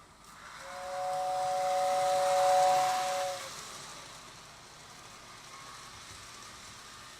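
Postwar Lionel toy steam train's electric whistle blowing for about three seconds: a steady two-note chord over a rushing hiss from its motor-driven fan, which then cuts off.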